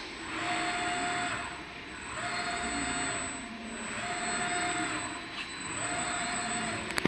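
KUKA KR22 industrial robot arm's servo drives whining as the arm moves, a short steady whine repeating about every two seconds, four times, with a swell of mechanical hiss on each move. A sharp click near the end.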